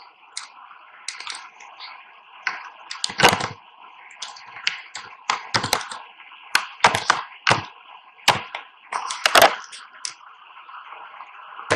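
Computer keyboard typing: irregular keystroke clicks, some in quick runs, over a steady background hiss.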